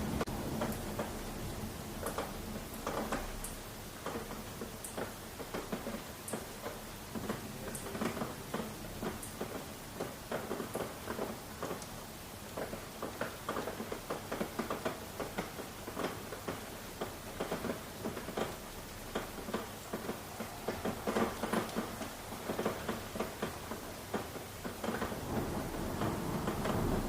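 Rain falling steadily, with many separate drops tapping irregularly.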